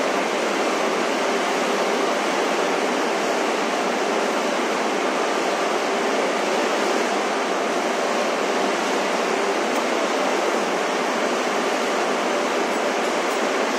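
A steady, even rushing noise with no rhythm and no change.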